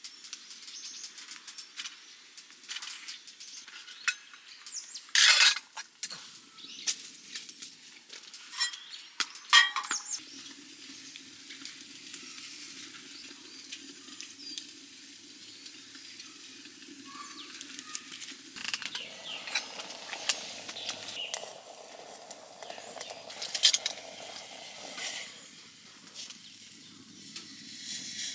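Camp cooking sounds: metal pan, plate and utensils clinking and knocking, with a few sharp knocks in the first ten seconds, then a steady sizzle from the frying pan.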